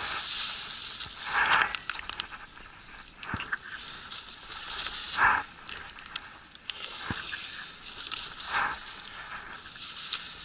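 Plastic bag crinkling and rustling in bursts as freshly caught fish are dropped into it, with a few light knocks in between.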